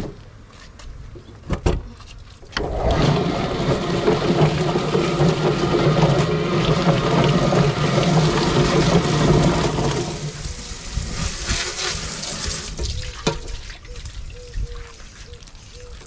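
Hot scald water sloshing and churning as chickens are dunked and swished in a pot. It starts suddenly after a couple of knocks, runs loud for about seven seconds, then thins out and dies down.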